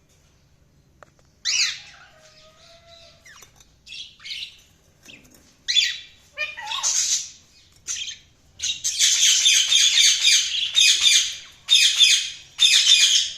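Budgerigars chirping and squawking. The first second or so is quiet, then come scattered high calls and sweeping chirps, and from about nine seconds in a near-continuous fast chatter.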